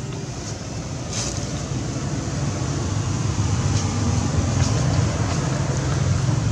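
A motor engine running steadily with a low rumble, growing gradually louder, with a few faint clicks.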